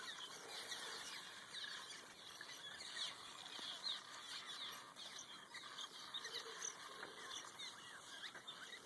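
A swarm of small birds calling all around, many short overlapping chirps and twitters, fairly faint.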